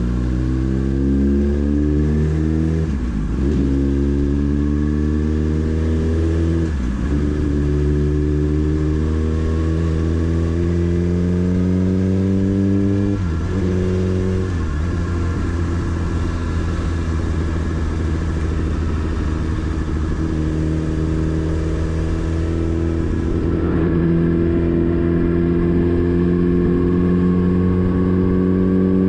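Motorcycle engine under way, pulling through the gears: its note climbs and then drops sharply at each gear change, about five times. It holds a steadier note in the stretch between the later shifts.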